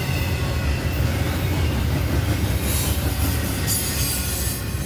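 A train rolling past: a steady low rumble of wheels on the rails, with two short bursts of high hiss about three and four seconds in.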